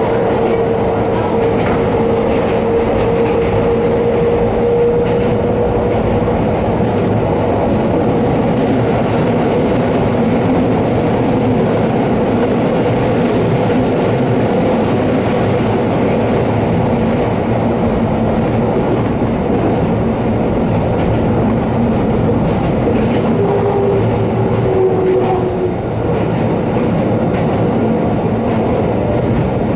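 Shintetsu electric train climbing a steep grade, heard from inside the car: steady running noise of wheels on rail under a held whine from the traction motors, working hard on the climb.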